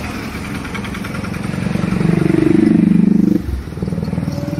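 Road traffic with a motor vehicle's engine passing close. It grows louder about two seconds in and drops away suddenly a little after three seconds.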